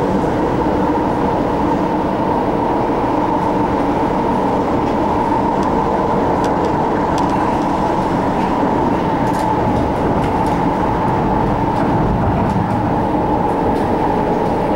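MTR Ma On Shan Line C-Train cruising between stations, heard from on board. Steady rumble of the wheels on the track, with a steady held tone over it and no change in speed.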